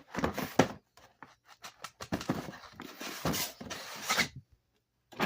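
Rustling and scraping of firework packaging being handled, in uneven bursts that stop about four and a half seconds in.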